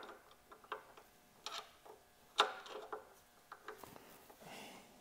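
Scattered small clicks and knocks of parts and tools being handled during a foot peg install, with one louder clack about two and a half seconds in and a brief rustle near the end.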